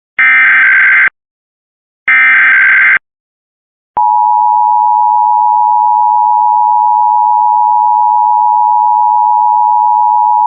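The last two of three Emergency Alert System SAME header data bursts, buzzy digital squawks about a second long each, encoding the Required Monthly Test. About four seconds in, the EAS two-tone attention signal (853 and 960 Hz together) starts and holds steady.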